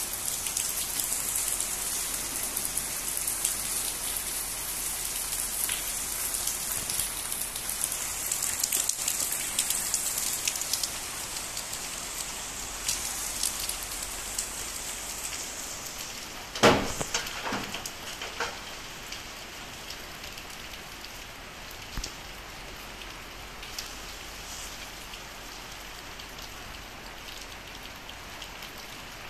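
Torrential rain falling steadily as a continuous hiss, easing somewhat after about ten seconds. About halfway through, a single sharp knock, louder than the rain, is followed by a few smaller taps.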